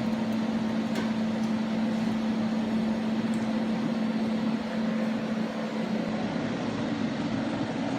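A steady machine hum at one pitch over a background of noise, fading out about six seconds in.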